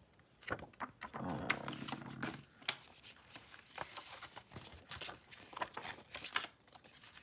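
A glossy paper CD fold-out insert is unfolded and handled, giving crinkles, rustles and light snaps of paper throughout. A longer, lower rubbing sound runs from about one to two and a half seconds in.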